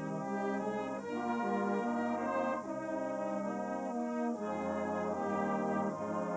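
Brass band playing a slow piece of sustained chords that change about once a second.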